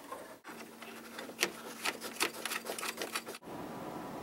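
Irregular small metallic clicks and taps of a hand tool loosening the nuts that hold a pinball back box speaker, with a faint steady hum under them. The clicks stop abruptly about three-quarters of the way through.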